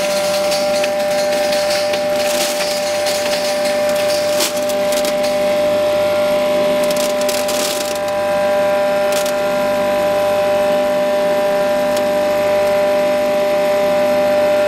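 A 5 HP electric grinding mill (atta chakki / spice grinder) running with a steady whine while dried maize is crushed into coarse daliya. The crackle of grain breaking is heaviest for the first eight seconds or so, then thins out as the motor keeps running steadily.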